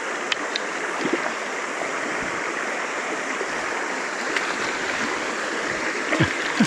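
Shallow stream flowing over stones, a steady rushing, with a few faint clicks and a couple of soft knocks near the end.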